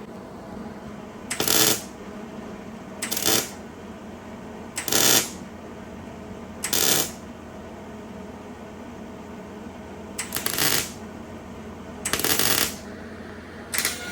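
MIG welder laying short tack welds on a steel door-hinge bracket: seven crackling bursts of about half a second each, one every couple of seconds.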